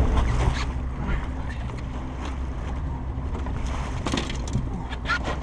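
Steady low hum of a trolling boat's motor running, with wind on the microphone and water noise. A few short knocks come near the end.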